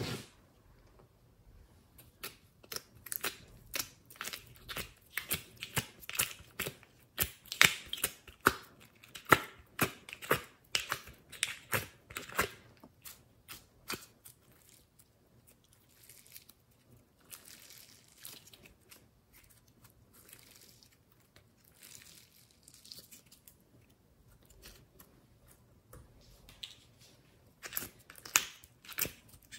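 Slime being squeezed and kneaded by hand: a dense run of sticky clicks and pops. It goes softer and sparser through the middle, then turns to sharp clicks again near the end.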